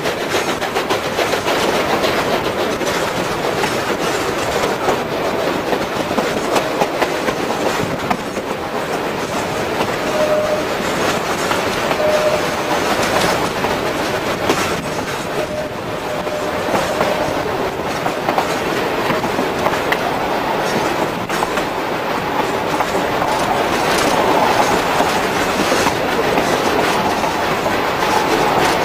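Durango & Silverton narrow-gauge steam train coaches rolling along the rails, heard from a coach: a steady rumble and rattle with wheels clacking over the rail joints.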